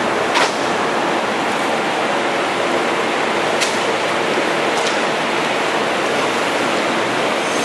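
Loud, steady rushing noise of a 15-opening plywood hot press at work, with a few short sharp clicks.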